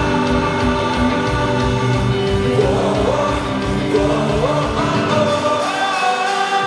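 Live pop-rock band playing through a concert sound system: a sung lead vocal over held guitar chords, bass and drums. Near the end the bass and drums drop out for about a second while the voice and chords carry on.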